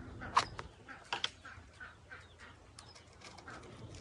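Air-rifle pellets being handled and loaded into a rotary magazine: sharp clicks, the loudest about half a second in and a pair just after a second, with small ticks and rattles between. Birds call in the background.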